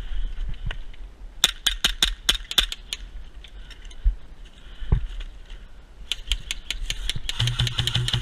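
WE Tech GP1799 gas blowback airsoft pistol firing a quick string of about six shots about a second and a half in, each a sharp crack of the slide cycling. Near the end a JG M4A1 electric airsoft rifle fires a short burst, its motor and gearbox humming under rapid clicks.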